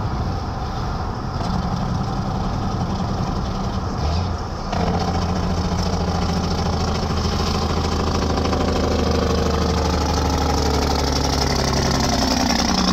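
Straight-piped Caterpillar C10 diesel of a Peterbilt truck cruising at highway speed: a steady, deep exhaust drone over tyre and wind noise, heard from a car behind and then alongside it. The drone gets suddenly louder about five seconds in and stays steady, with a slight rise in pitch near the end.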